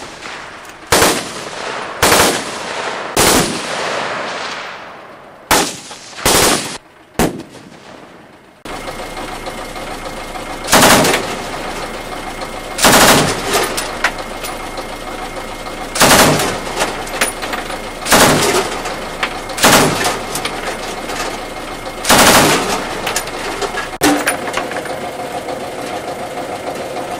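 Gunfire: single rifle shots about a second apart, then, after a cut about nine seconds in, shots every two to three seconds from a belt-fed machine gun in an armoured vehicle's roof turret, over a steady engine hum.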